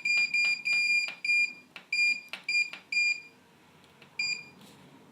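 Hotpoint Ultima WMA64S washing machine's control panel beeping as its settings are stepped through: a short, high electronic beep with a click each time, about four a second. After a pause of about a second, one more beep sounds near the end.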